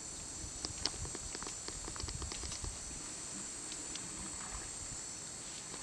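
African bush elephants shuffling and moving at close range: scattered, irregular soft knocks, scuffs and clicks, with a steady high hiss behind them.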